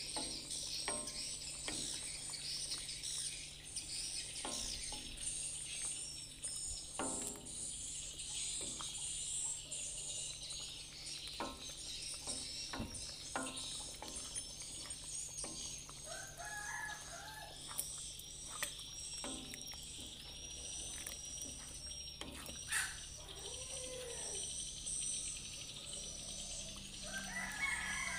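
Coconut-milk cassava-leaf stew simmering in a wok, with irregular little pops and clicks from the bubbling. Chickens call in the background a few times, the loudest a crowing call near the end, over steady high bird chirping.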